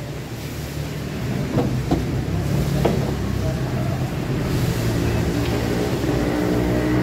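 Pool balls clacking sharply three times, between about one and a half and three seconds in, over a steady low hum.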